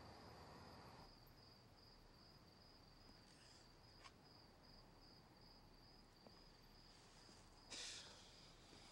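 Near silence with faint crickets chirping in a steady pulsing rhythm. There is a soft click about four seconds in and a short swish near the end.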